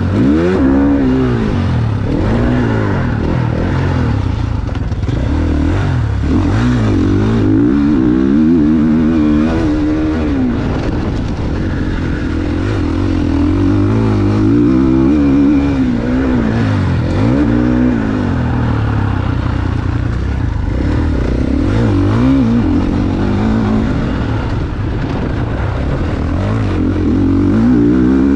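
GasGas MC450 motocross bike's four-stroke single-cylinder engine being ridden, its pitch climbing under throttle and dropping off again many times over, with rises every few seconds.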